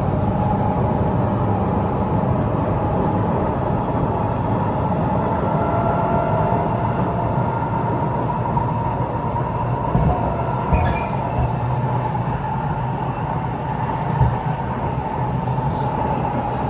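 Kawasaki C751B metro train heard from inside the car while running between stations: a steady rolling rumble with a whine and a few short knocks from the track.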